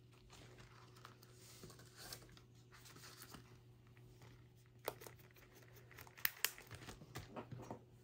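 Paper game sheets being handled and shuffled on a table: soft rustling and crinkling with a few sharp clicks and taps, most of them in the second half, over a faint steady hum.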